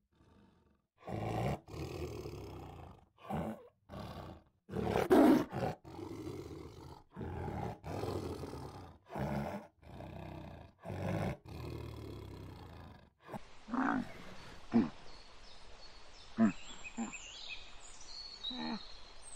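Tiger giving about a dozen deep, rough calls in a row, each under a second with short gaps between them. After about 13 seconds these give way to a few quieter, shorter calls and high squeaks.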